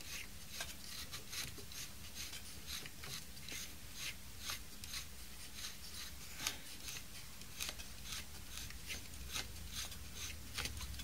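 Threaded adjustment screw of a stick-welding transformer's magnetic shunt being wound out by hand: faint, irregular scraping clicks, a few a second, as the shunt slides out towards its highest-amperage setting.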